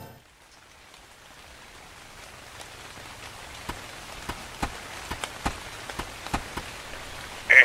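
Steady rain fading in from quiet, with single drops striking sharply every so often from about halfway. A brief louder sound cuts in at the very end.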